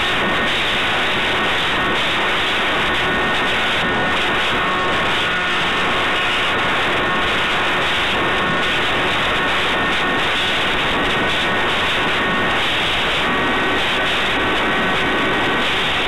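Steady rushing airflow noise over the onboard camera's microphone on a Maxi Swift model aircraft flying in high wind, with faint thin whining tones coming and going.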